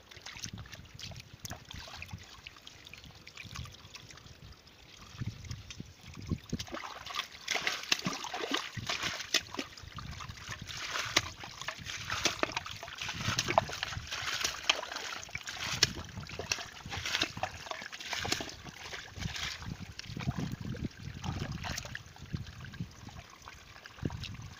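Splashing and sloshing in shallow muddy water, with many small quick splashes. It is fairly quiet for the first few seconds and gets busier from about a quarter of the way in.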